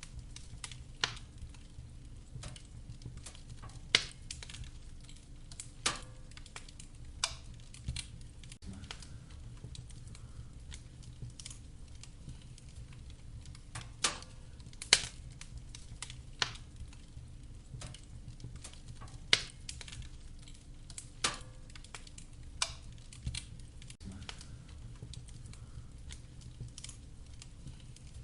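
Wood fire crackling in a fireplace: sharp, irregular pops and snaps of burning firewood, roughly one every one to two seconds, over a steady low rumble of the flames.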